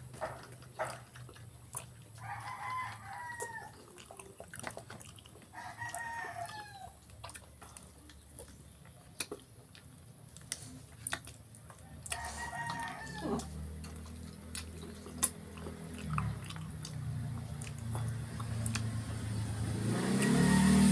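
A rooster crowing three times, a few seconds apart, each call ending on a falling note. Wet chewing and lip-smacking clicks run throughout, and a low engine rumble builds near the end.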